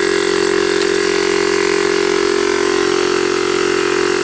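12-volt direct-drive air compressor running steadily, a loud even hum at one constant pitch.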